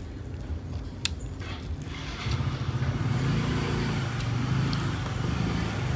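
A motor vehicle's engine running, coming up loud about two seconds in and then holding steady. A single sharp click about a second in.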